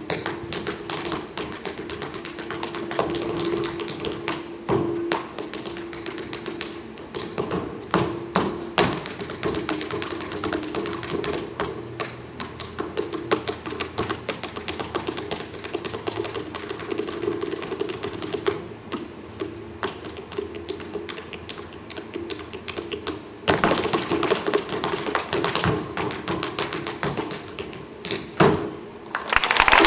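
Tap shoes striking a stage floor in quick, irregular rhythms of taps and heavier stamps, with a dense run of very fast taps about three quarters of the way through.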